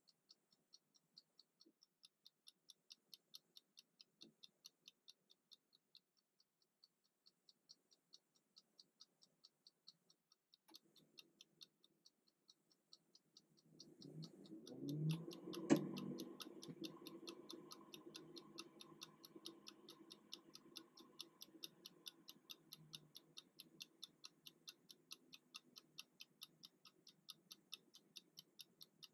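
Mechanical kitchen timer's clockwork ticking fast and evenly as it counts down. About fourteen seconds in, a louder low rumble swells and peaks with one sharp knock, and a faint low hum stays under the ticking afterwards.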